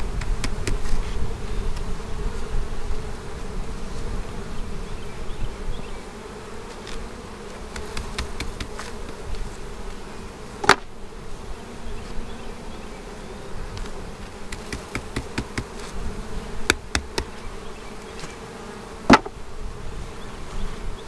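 Honeybees buzzing in a steady hum around an open hive, with a few sharp knocks of wooden hive frames being handled, the loudest about halfway through and another near the end.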